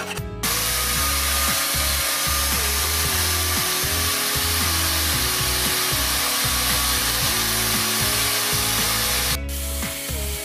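Angle grinder with an abrasive disc grinding rust off a steel hatchet head, a loud steady rasping hiss with a faint high whine. It starts suddenly about half a second in and drops away near the end.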